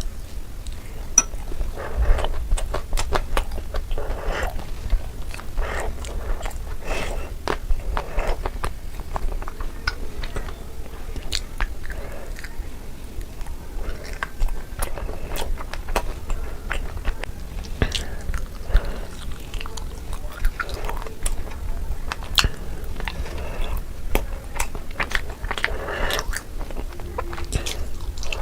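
Close-miked eating of Indian sweets: steady chewing and biting with many sharp, wet mouth clicks.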